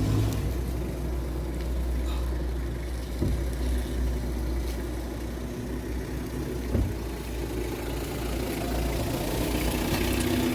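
Steady low mechanical hum like an idling engine, with two light knocks about three and seven seconds in.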